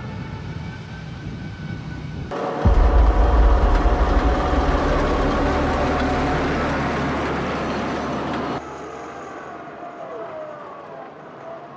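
M270 MLRS tracked rocket launchers driving, their diesel engines and tracks making a heavy rumble. It turns suddenly loud about two seconds in and cuts back to a quieter run about three seconds before the end, where the engine pitch rises and falls.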